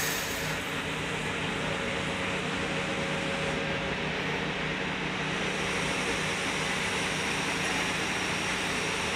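Steady droning hum with a hiss over it and a few faint low tones, unchanging throughout.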